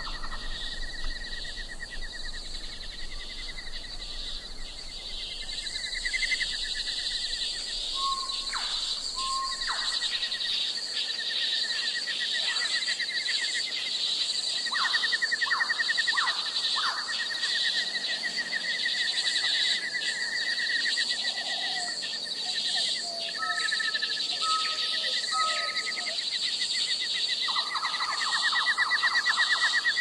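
Nature ambience: a steady high insect chorus with repeated fast trilling calls, short clear bird whistles and a few quick chirps.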